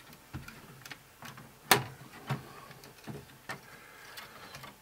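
Scattered light clicks and taps of a screwdriver and circuit board against a VHS-DVD recorder's sheet-metal chassis as a hooked-in board is worked loose, with one sharper click a little under two seconds in.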